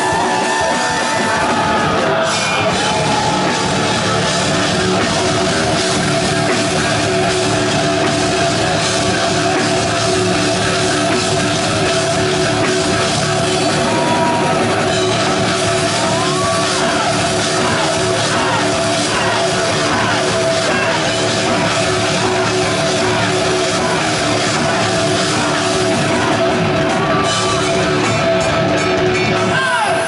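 Live rock band playing loudly: electric guitar over a drum kit, with guitar notes sliding up and down in pitch now and then.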